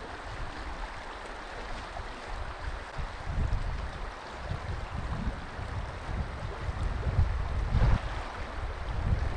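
Trout-stream riffles running steadily, with wind gusting on the microphone in uneven low rumbles.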